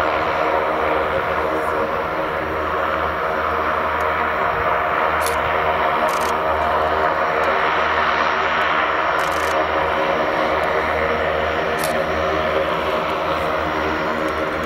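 Antonov An-26B's two Ivchenko AI-24 turboprop engines running as the aircraft taxis: a steady propeller drone with several held engine tones and a low pulsing beat.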